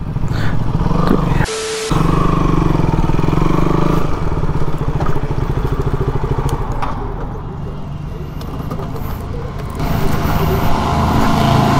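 KTM motorcycle engine running steadily at low revs as the bike rolls slowly at walking pace.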